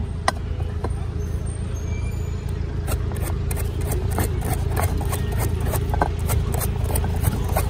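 Metal blade tapping and prying the hard shell off a husked old coconut, chipping it away from the white meat. A few knocks at first, then a quick run of sharp taps, about three a second, from about three seconds in, over a steady low background rumble.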